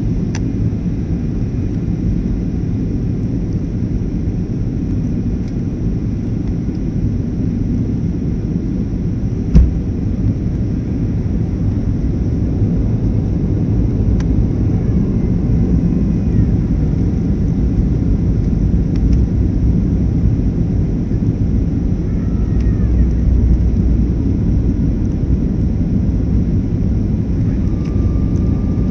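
Steady low rumble of jet engines and rushing air inside an airliner's cabin on approach. A single sharp knock sounds about ten seconds in.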